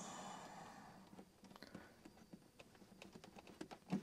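A short hiss that fades over about the first second, then scattered light clicks and taps of a power cord's plug being pulled and the cord handled.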